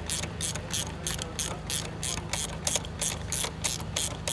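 Ratchet wrench on a long extension clicking quickly and evenly, about five clicks a second, as an A/C pipe fitting is tightened. A steady low hum runs underneath.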